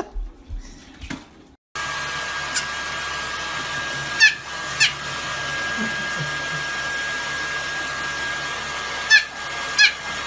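A hair dryer running steadily with a constant whine, starting abruptly about two seconds in. Two pairs of short, high squeaks sound over it.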